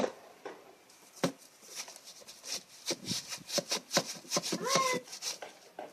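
Dry nest material rustling and scraping as it is pulled out of a roof cavity, with one short squawk from a baby bird near the end.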